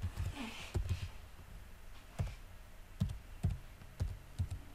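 Keys of a computer keyboard being typed on slowly: about eight separate, irregularly spaced keystrokes with a dull thud in each, as a web address is entered.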